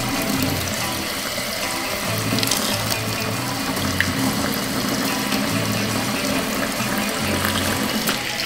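Kitchen tap running steadily into a stainless steel sink as a wok of blanched lamb is rinsed under the stream. Background music with a low bass line plays along.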